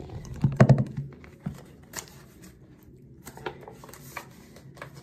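A few knocks and bumps of a phone being handled about half a second in, then the crinkle and crackle of a candy wrapper being picked at and torn open by hand, a scatter of small clicks.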